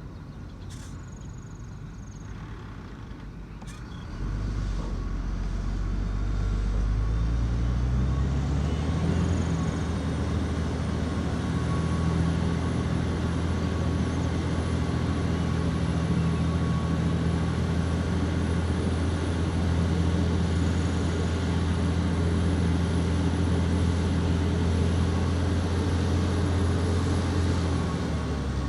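Heavy diesel engine of earth-moving machinery, coming up under load about four seconds in and rising in pitch as it revs, then held steady at high revs.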